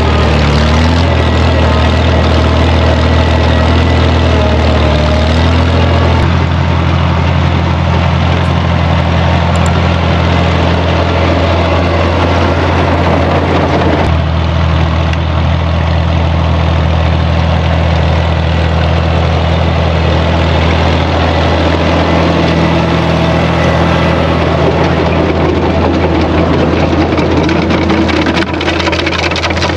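Tractor engine running steadily at constant speed, its note shifting slightly about six seconds in and again about fourteen seconds in, with a few rattles near the end.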